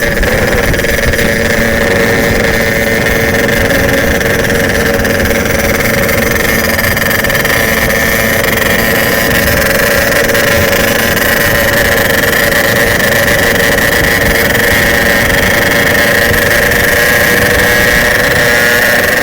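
Bored-out Yamaha RX-King two-stroke single-cylinder motorcycle engine running loud and steady at one unchanging pitch.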